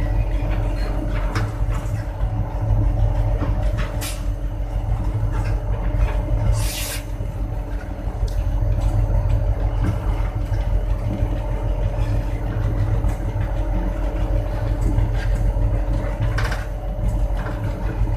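Diesel locomotive engine running steadily as the locomotive moves: a deep rumble with a constant hum. A few sharp clicks are heard, and there is a short hiss about seven seconds in.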